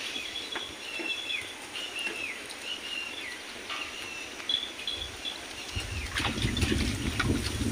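A bird calling over and over, a high whistled note that drops away at its end, repeated about once a second. About six seconds in, a low rumbling noise comes up beneath it.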